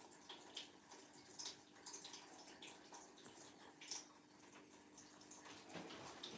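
Near silence: quiet bathroom room tone with a faint low hum and a few faint, irregular ticks.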